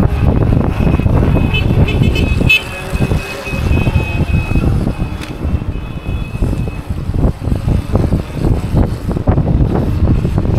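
Group riders' horns honking repeatedly ahead, over heavy wind buffeting on the microphone of a moving electric unicycle. The excessive honking is an alert that a rider has fallen. It starts about a second and a half in and stops about seven seconds in.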